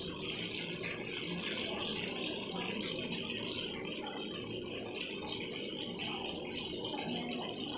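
Chicken seekh kababs shallow-frying in hot oil in a pan: a steady sizzle.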